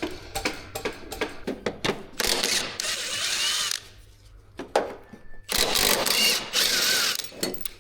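A power tool runs twice for about a second and a half each time, spinning fasteners out, with clicks and knocks of hand tools and parts between the runs.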